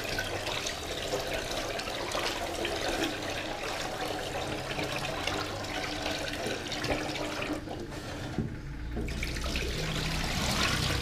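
Kitchen tap running into a rice cooker pot while rice is rinsed and stirred by hand. The water sound thins out briefly about eight seconds in, then grows louder again as the rinse water is tipped out of the pot near the end.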